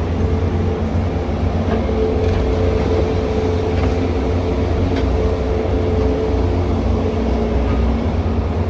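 Excavator's diesel engine and hydraulics working under load: a steady deep rumble with a whining tone over it that strengthens about two seconds in and fades near the end, plus a few faint ticks.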